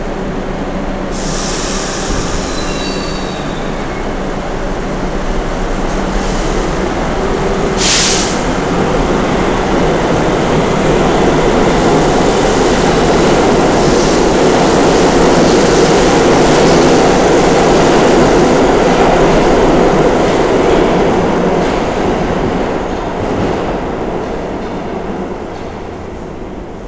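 R62A subway train pulling out of the station: the running noise of wheels on rail builds as the cars pass, then fades over the last few seconds. Brief high wheel squeal sounds a second or two in, and a single sharp click about eight seconds in.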